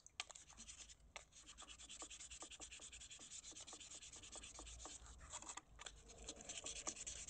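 Sandpaper rubbed by hand in quick back-and-forth strokes over a saw handle, with a brief pause near the end.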